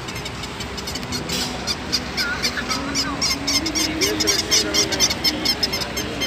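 Battery-operated toy animals at a toy stall chirping and squeaking rapidly, over a simple electronic tune that steps up and down in pitch.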